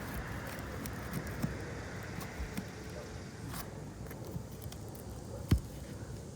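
Small clicks and crackles of a roof snake working nails out from under brittle asphalt shingles, over steady outdoor background noise, with one sharp knock about five and a half seconds in.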